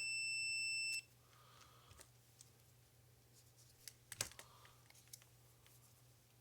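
Multimeter continuity beeper sounding one steady high beep as the probes bridge pins 7 and 8 of the lathe's switch assembly, the sign of a closed contact; it cuts off about a second in. A few faint clicks of the probes on the switch terminals follow.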